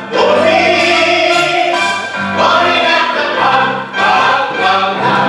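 Stage cast singing together with musical accompaniment, in long held notes with vibrato and short breaks between phrases.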